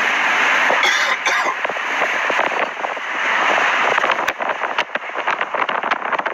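Strong wind rushing over a phone's microphone close to a tornado, a loud steady roar that turns gusty and crackly about two-thirds of the way in.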